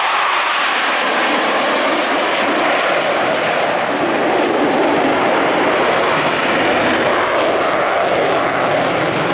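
Blue Angels F/A-18 jets flying a display formation, their engines making a loud, steady jet noise.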